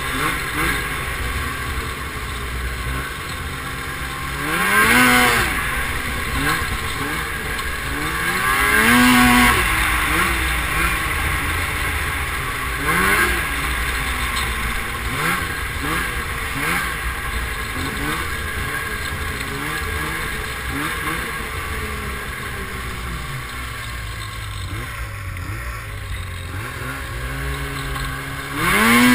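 Snowmobile engine running along the trail, repeatedly revving up and easing off so its pitch rises and falls, with louder surges of throttle about five and nine seconds in and again at the very end.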